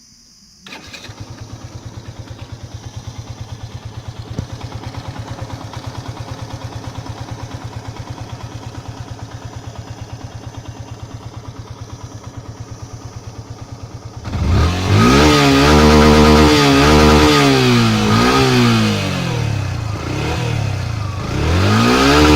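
Yamaha FZ-S FI V2.0's 149 cc single-cylinder engine starting under a second in and idling steadily. About two-thirds of the way through it is revved hard several times, the pitch rising and falling with each blip, then rising again near the end.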